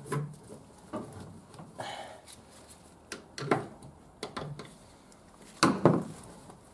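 Scattered clicks and knocks of gloved hands working at a diesel fuel filter head, disconnecting the fuel hose to the injection pump, with a pair of louder knocks near the end.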